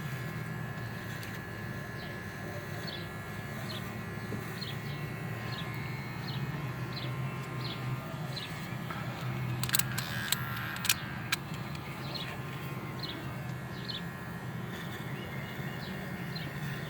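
Cordless electric pet clippers running steadily with a low hum and a thin whine as they shave a dog's coat. A bird chirps over and over in the background, and there are a few sharp clicks about ten seconds in.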